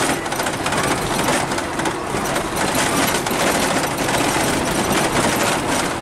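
Vehicle driving on a gravel road, heard from inside the cab: steady tyre and road noise with a dense rattle of gravel against the body.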